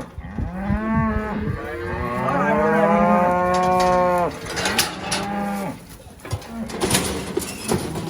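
Cattle mooing: a few long, drawn-out calls in the first half, the longest about three seconds, then shorter moos mixed with several sharp knocks.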